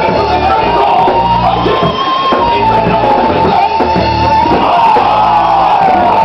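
Loud rock music with shouting voices over it.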